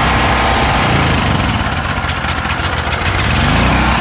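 DuroMax XP4400E portable generator's single-cylinder gasoline engine running steadily.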